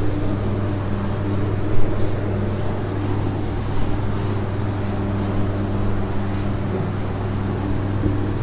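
Whiteboard duster rubbing across a whiteboard in quick repeated strokes, a soft scrubbing over a steady low electrical hum. The rubbing stops about a second before the end.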